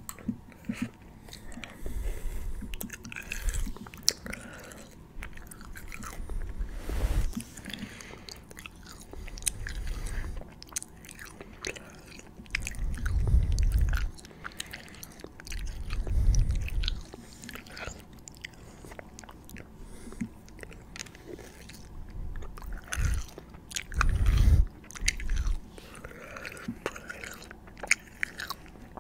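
Close-miked ASMR mouth sounds: a stream of small wet clicks and smacks, with occasional chewing. Several louder low, muffled bursts come at intervals, the strongest about halfway through and again near the end.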